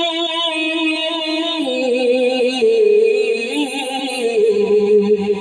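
A man singing a Bangla gojol into a microphone, holding a long wavering note, then moving down through several drawn-out notes without clear words.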